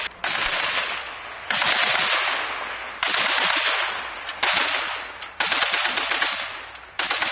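Mounted machine gun firing long bursts skyward at a drone, about six bursts one after another, each starting abruptly and tailing off.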